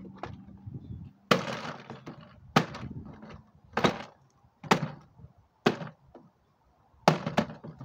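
Sledgehammer striking a toy truck in the bottom of a plastic trash can: six heavy blows about a second apart, the last one followed closely by a smaller knock.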